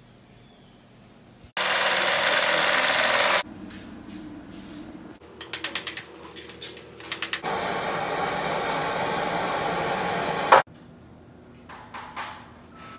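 Work noises in quick succession: a loud steady hiss for about two seconds that cuts off abruptly, then a run of sharp metallic taps as hand tools work on a sheet-metal water-heater drain pan, then another steady hiss of about three seconds that also stops abruptly.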